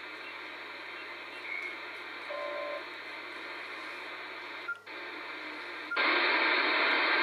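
Kenwood TS-2000 transceiver's receiver hissing with band noise from its speaker while it is tuned across an empty shortwave band in USB, with a few short tones along the way. Near 5 seconds in the audio drops out briefly with a short beep. About a second later the hiss becomes much louder, as the set switches to 28 MHz AM with its preamplifier on.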